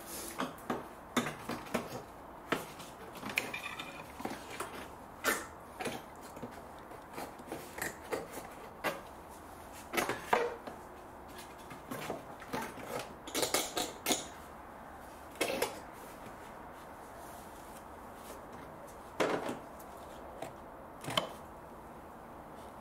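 Hard plastic front-end covers being bent and slid into place around a Mercedes B-Class's air-con condenser: irregular clicks, knocks and taps of plastic, busy for most of the stretch and only a few separate knocks near the end.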